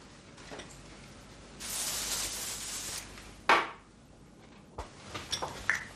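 A steady hiss lasting about a second and a half, then a single short, sharp knock, with a few faint clicks near the end.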